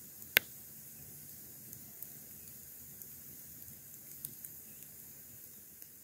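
Wood campfire burning with a soft hiss and scattered crackles, one sharp pop about half a second in.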